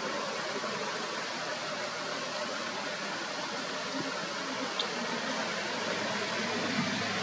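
Steady hiss of outdoor background noise with no clear source, and a single short high chirp a little before five seconds in.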